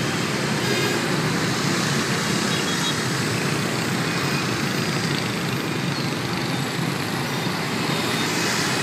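Steady traffic noise of a busy city intersection, mostly motor scooters and motorbikes passing, with cars and a bus among them.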